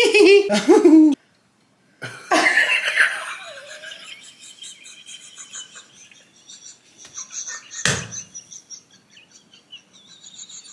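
People laughing in loud bursts at the start, then fainter high twinkling sounds, with a single sharp knock about eight seconds in.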